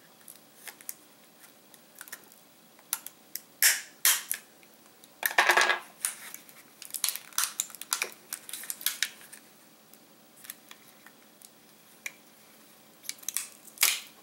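Plastic clicks and scrapes as a screwdriver pries at the clip tabs of a DJI Phantom 4 battery's plastic casing, with a longer scrape about five seconds in, and metal tools knocking against the wooden tabletop.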